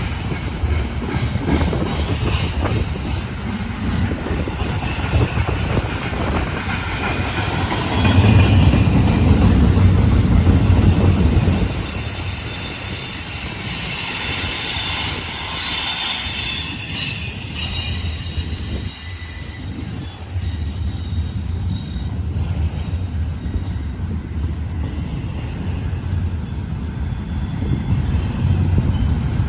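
Freight cars rolling slowly past with a steady low rumble of wheels on rail. High steel wheel squeal whines for a few seconds past the middle.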